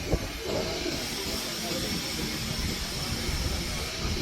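Steady hissing noise with one sharp knock right at the start.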